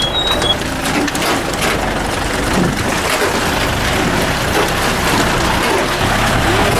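Jeep driving over a rough dirt road: a steady loud mix of engine and road noise with scattered knocks and rattles from the body.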